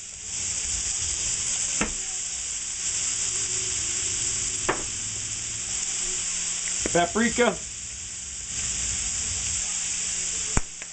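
Shrimp and sugar snap peas stir-frying in a hot skillet: a steady sizzle that grows louder just after the start as soy sauce hits the pan, with a few sharp ticks. The sizzle drops away near the end.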